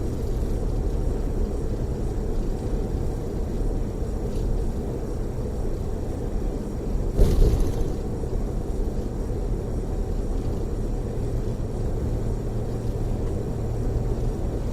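Tour coach running at freeway speed, heard inside the cabin: a steady low rumble of engine and road noise, with one short, louder bump about seven seconds in.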